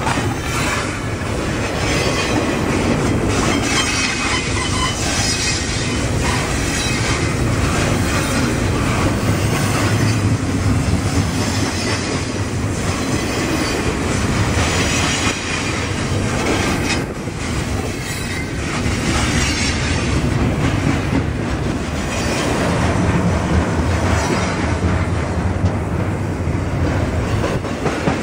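Double-stack intermodal well cars rolling past close by: a steady rumble and clatter of steel wheels on the rails, with high-pitched wheel squeal coming and going as the train takes the curve.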